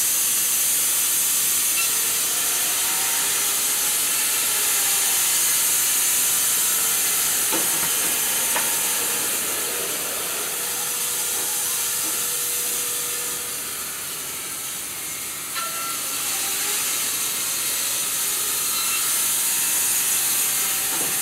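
Wood-Mizer LT300 band sawmill cutting through a walnut burl: a steady, even hiss of the blade in the wood, with a few faint knocks.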